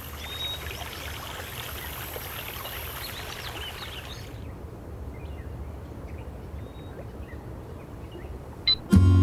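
Forest ambience: a steady hiss with faint bird chirps. About four seconds in it drops to a low, muffled rumble. A short high tone sounds near the end.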